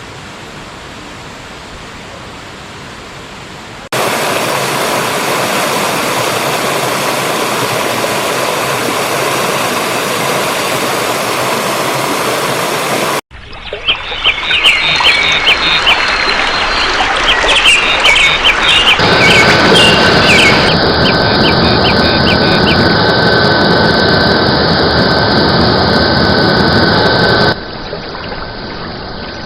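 Rushing water, heard in several stretches that change abruptly, as between spliced clips. Birds chirp over the water in the middle stretch.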